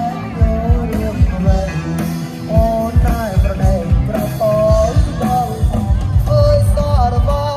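Loud amplified band music with a singer: a steady drum beat under a gliding, ornamented sung melody.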